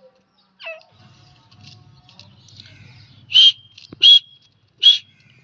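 Gray francolin calling: three loud, short, sharp notes about three-quarters of a second apart in the last two seconds.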